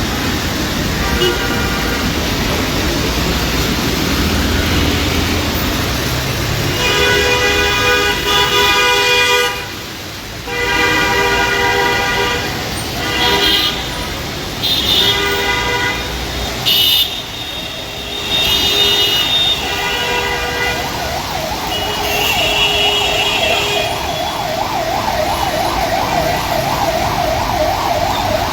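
Heavy city traffic in the rain: vehicle horns sound in several long blasts over a steady wash of traffic and rain noise. Near the end a siren starts up with a fast up-and-down wail.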